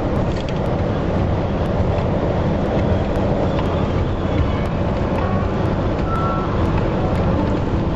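Steady engine and tyre noise heard inside the cabin of a vehicle driving along a wet highway.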